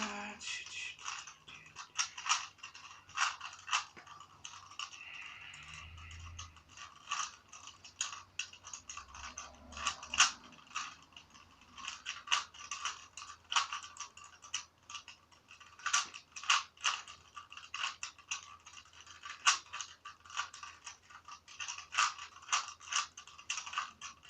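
Rubik's Cube being turned rapidly by hand: a long, irregular run of plastic clicks and clacks as the layers snap round. It is a cheap store-bought cube whose inner screw has been loosened so it turns fast.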